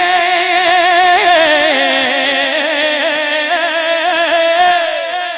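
A man's voice through a microphone holding one long sung note with a wavering vibrato, in the drawn-out style of a naat reciter, fading near the end.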